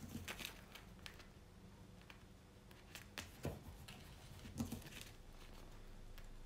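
Faint, scattered light taps and rustles of hands handling a diamond painting canvas and its packaging.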